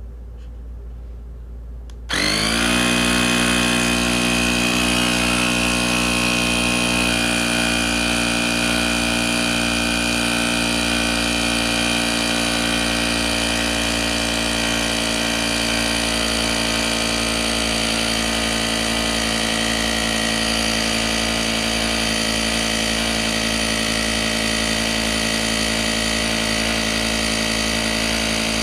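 Cordless electric tire inflator pump switching on about two seconds in and running with a steady motor hum as it pumps air into an e-bike tire. Its pitch dips slightly just after starting, then holds.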